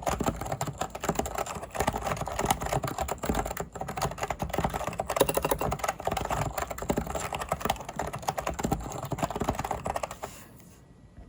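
Fast, continuous typing on a Leopold FC660C mini keyboard with Topre electrostatic capacitive switches, many keystrokes a second. The typing stops about ten and a half seconds in.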